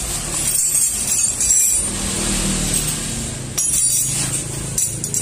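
Metallic clinking and rattling of hand tools and parts on a removed Yamaha Aerox 155 engine as it is being dismantled, with a couple of sharper clicks in the second half.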